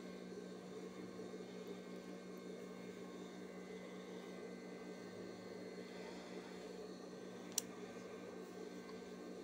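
Steady low electrical hum, with one short sharp click about seven and a half seconds in.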